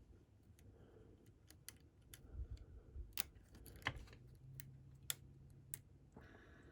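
Faint, irregular small metallic clicks and ticks of a lock pick working the pin stack of a Medico cam lock, probing pins to check whether they are set.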